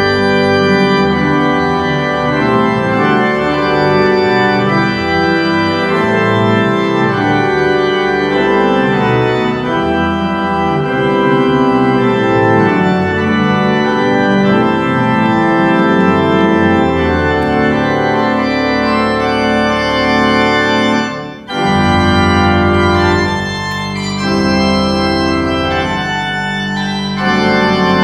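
Organ playing a slow, full-voiced piece of held chords with moving lines. About 21 seconds in the sound briefly dips, then a new held chord with a deep bass note begins.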